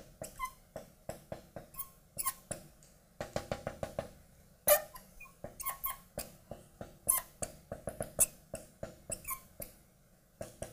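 Marker writing on a glass lightboard: a quick run of taps and short squeaks with each pen stroke, at an uneven pace with a few brief pauses.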